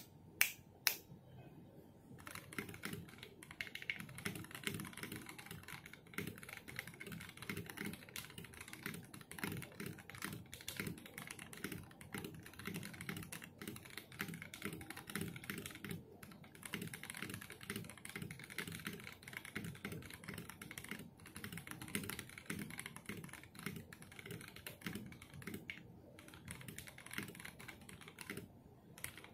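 Two sharp finger snaps, then continuous fast typing on a Monstagear XOv2 aluminium keyboard with a brass plate, lubed and filmed Holy Boba tactile switches and PBT keycaps. The keystrokes run as a dense stream with a few short pauses.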